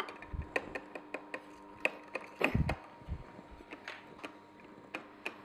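Omega Sana EUJ-707 slow auger juicer running with its blank homogenizing screen: a steady low motor hum under irregular sharp cracks and clicks as the auger crushes pieces of fruit into purée. A few dull knocks come through as well, the loudest about two and a half seconds in.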